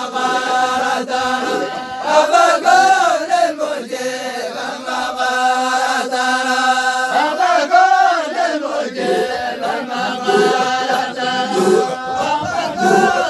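A group of voices chanting together in unison, holding long notes whose pitch rises and falls: communal Islamic devotional chanting.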